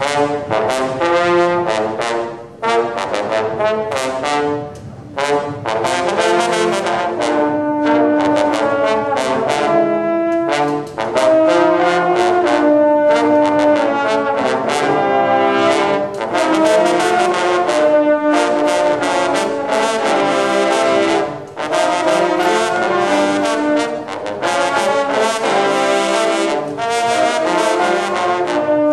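A section of marching baritone horns playing a fanfare together: loud held brass chords and phrases, broken by a few short breaths between phrases.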